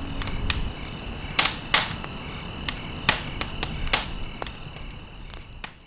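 Firewood crackling and popping in a wood-burning stove: irregular sharp pops, the two loudest close together about a second and a half in, fading out at the end.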